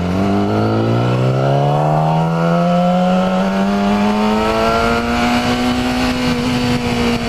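Yamaha YZF-R6's inline-four engine accelerating, its pitch rising steadily over the first few seconds, then levelling off and dropping slightly near the end as the throttle eases.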